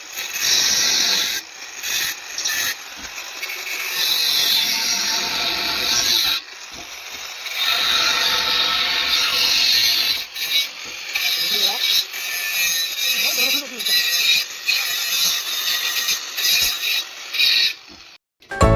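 Power tool working on steel, running in stretches with brief pauses between them.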